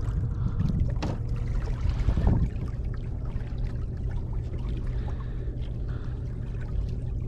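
Steady low rumble of wind and water around a small boat at sea, with a few light clicks from bait and tackle being handled.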